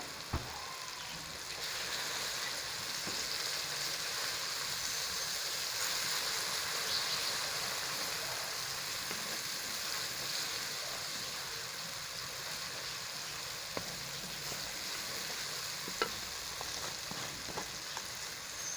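Onion, tomato and spice masala sizzling in hot oil in a karahi while it is stirred, with a few sharp knocks of the spoon against the pan. The sizzle grows louder about two seconds in and eases off slowly later.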